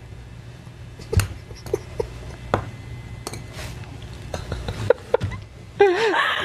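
Two television news anchors laughing, heard as scattered short bursts and clicks over a low steady hum, with a louder voice coming in near the end.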